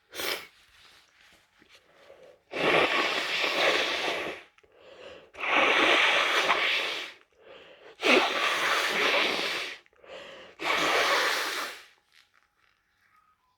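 A congested person with a head cold: a brief stifled sneeze at the start, then four long, forceful blasts of breath through the nose, each about two seconds, with short breaths between them.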